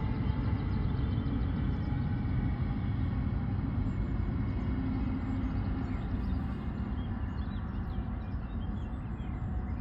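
Steady low outdoor rumble with a lighter hiss above it, even throughout, with faint bird chirps near the end.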